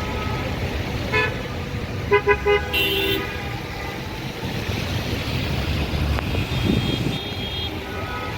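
Road traffic with vehicle horns honking in short toots over a steady engine rumble, including three quick toots about two seconds in.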